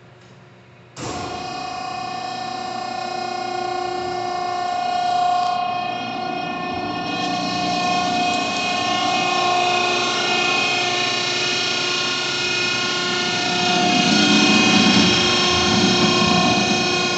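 Hydraulic vertical baler's 10 HP electric motor and hydraulic pump running, a steady whine of several held tones that starts abruptly about a second in and gets louder near the end.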